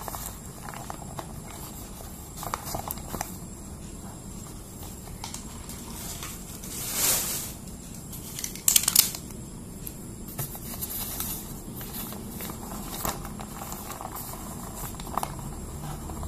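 Brown paper food wrapping rustling and crinkling as nasi padang packets are unfolded and emptied onto a plate. There are scattered crackles throughout, a longer rustle about seven seconds in, and the loudest crackles about nine seconds in.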